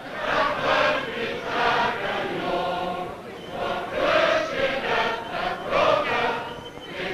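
Choir singing, many voices holding long notes together with a wavering vibrato, on a 1932 film soundtrack with a narrow, dull-topped sound.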